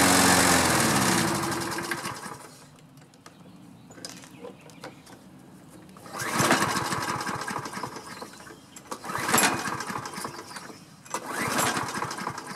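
Toro Recycler walk-behind mower engine shut off while hot, running down to a stop within about two seconds. After a pause it is cranked three times, turning over briefly each time without catching: the hot no-start fault.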